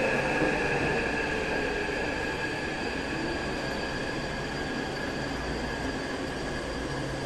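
Taipei Metro high-capacity steel-wheel train running into the platform and slowing to a stop: a steady high-pitched whine over rolling rumble, both fading gradually as the train slows.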